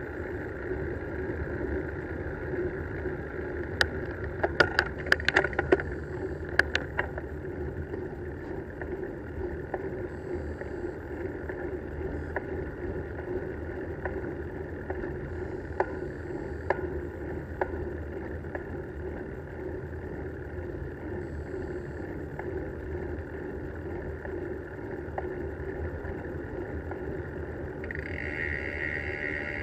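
Bicycle riding along a paved road, heard from a bike-mounted camera: a steady rumble of tyres and wind on the microphone, with a cluster of sharp rattling clicks a few seconds in and a few single clicks later. Near the end a higher steady buzz sets in.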